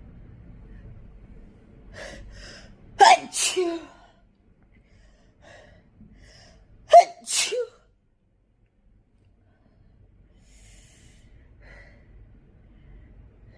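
A person sneezing twice, about four seconds apart, each sneeze a sharp loud burst with a second burst right after it; a soft catching inhale comes just before the first.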